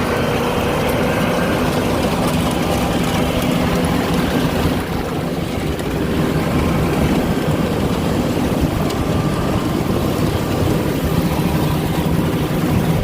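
Combine harvester running steadily while harvesting wheat, a constant loud mechanical hum.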